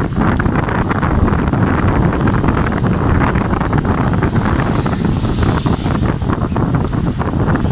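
Wind buffeting the microphone: a loud, steady rush of noise.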